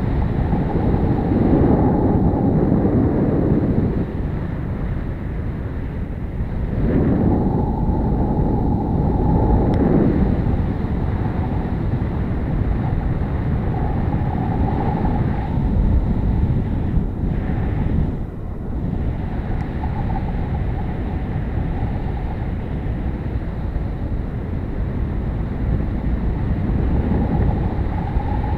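A touring motorcycle on the move: engine and wind rushing over the microphone in a steady rumble. It swells twice in the first ten seconds and dips briefly about two-thirds of the way through.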